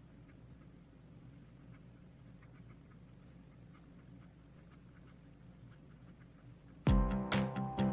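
Faint pen scratching on paper over a low room hum. About seven seconds in, loud music with a strong beat cuts in abruptly.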